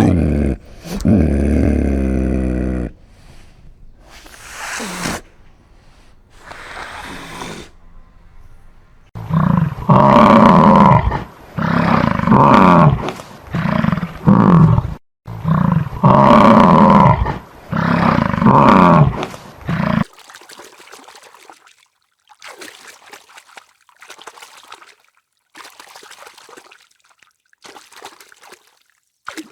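Farm animals calling: a long low call at the start, then a run of loud repeated calls from about ten seconds in, then only faint scattered sounds.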